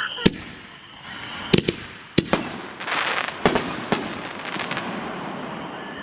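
Cutting Edge 'Firearm' firework going off: a string of sharp bangs, some in quick pairs, with a burst of crackling about three seconds in.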